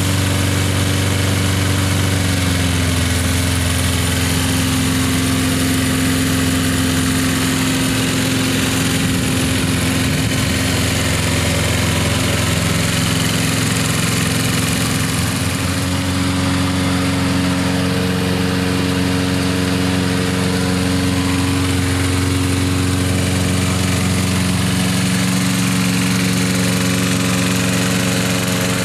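Four-stroke Briggs & Stratton engine on a Lawn-Boy commercial push mower running steadily, its pitch dipping slightly a few seconds in. The freshly rebuilt engine is breaking in and is no longer blowing smoke.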